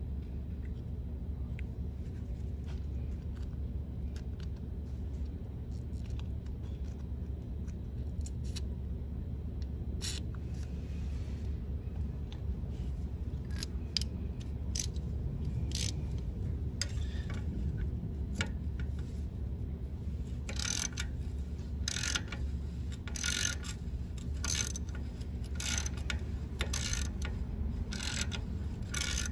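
Socket ratchet clicking in short, regular bursts from about two-thirds of the way in, working the rusted exhaust flange nut on a 1968 Honda CT90 engine, over a steady low hum.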